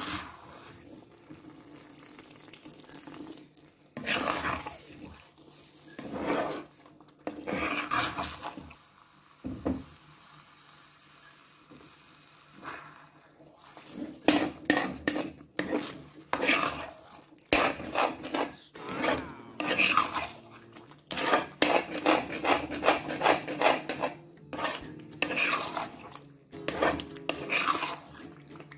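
Flat steel spatula scraping and slapping against a kadai as thick apple halwa is stirred, in irregular strokes that come more often about halfway through.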